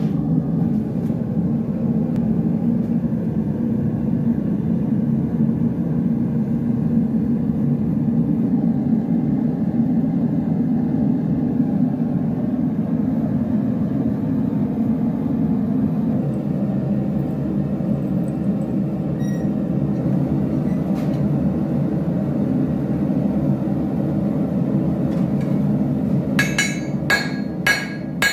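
A steady low rushing noise, then, near the end, a blacksmith's hand hammer striking red-hot angle iron on the anvil. The blows come about twice a second, each with a bright ring, as the angle iron is forged into a hook.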